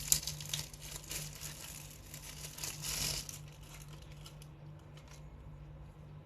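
A food wrapper crinkling and rustling as it is handled, busiest for the first three seconds, then only a few faint crackles, over a steady low hum.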